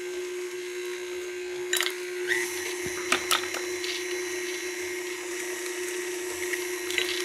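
Electric stand mixer running steadily with its paddle beating creamed butter and sugar in a glass bowl, a continuous motor hum. A few sharp clicks about two and three seconds in as eggs are cracked and dropped in.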